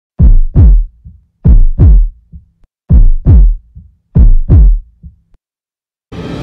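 Heartbeat-style intro sound effect: four deep double thumps, one pair about every 1.3 seconds, each dropping in pitch and trailed by softer echoing taps. Theme music comes in near the end.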